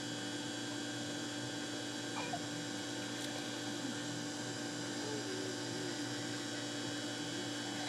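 Steady low hum with several fixed tones, like mains or machinery hum, with faint far-off voices a few times.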